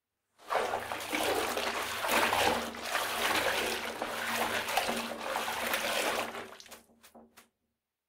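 Water from a tap running into a bathtub. It starts suddenly, gushes steadily with a low hum underneath for about six seconds, then dies away into a few last trickles.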